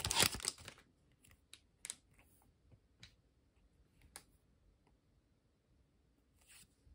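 Foil booster-pack wrapper crinkling for under a second, then a few soft, scattered clicks and taps of trading cards being handled.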